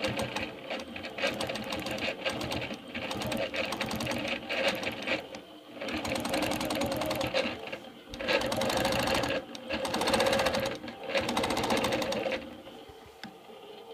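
Longarm quilting machine stitching, its needle going at a fast, even rate in several short runs with brief pauses between them. It stops near the end.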